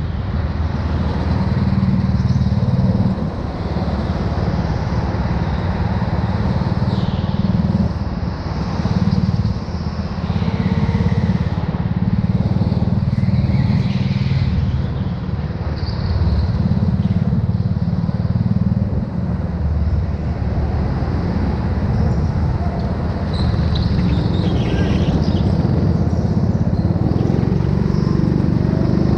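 Go-kart engine running hard during a lap, heard from an onboard camera, its level rising and falling repeatedly, with a few brief high squeals.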